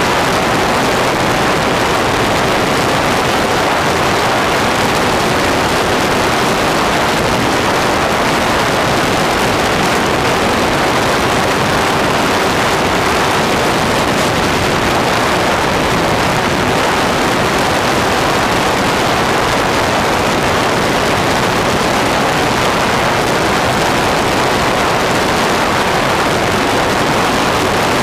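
Steady rushing wind noise on a camera mounted in a flying electric RC model plane (Durafly T-28), mixed with the running hum of its electric motor and propeller.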